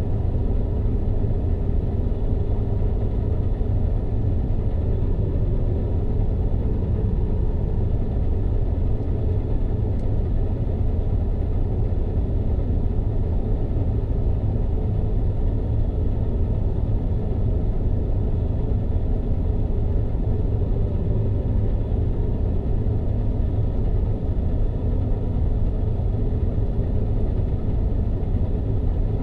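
New Holland TX66 combine harvester running steadily while cutting wheat, heard from inside the cab: a constant low rumble of the diesel engine and threshing machinery.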